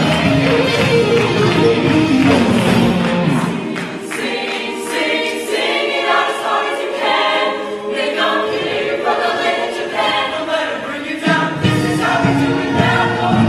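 A choir singing with musical accompaniment. The deep bass drops out about four seconds in, leaving mostly voices, and comes back in a couple of seconds before the end.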